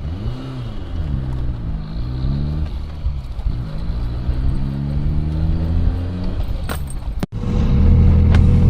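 BMW E30 M3 Evo 2's S14 four-cylinder engine under way, its revs rising and falling several times as the car accelerates and changes gear, with a longer steady rise in the middle. After a short dropout near the end it settles into a louder steady drone.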